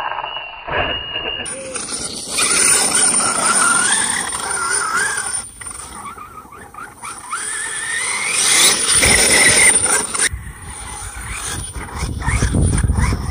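Large-scale electric RC buggy running flat out on a dirt track: its brushless motor whines, rising and falling in pitch with the throttle, over the hiss of its tyres churning dirt.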